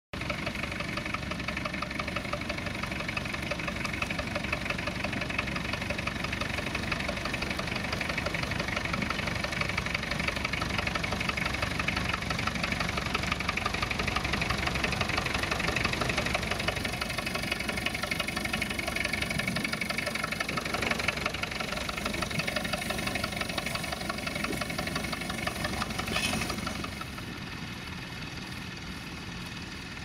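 Vintage tractor engines running steadily under load as they pull ploughs through the soil; the sound drops to a quieter level a few seconds before the end.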